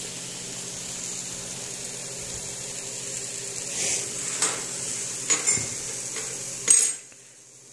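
Hot dogs sizzling in a frying pan, a steady hiss. A few light clicks come in the second half, with a sharper knock near the end, after which the sizzle briefly falls quiet.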